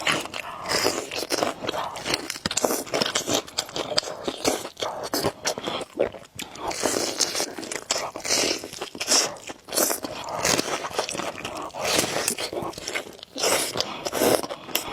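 Close-miked eating: a person chewing and slurping noodles, with many short wet clicks and smacks and brief bursts of noise.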